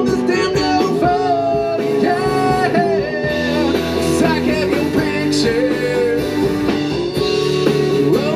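Live country-rock band playing an instrumental passage, with electric and acoustic guitars over a drum kit.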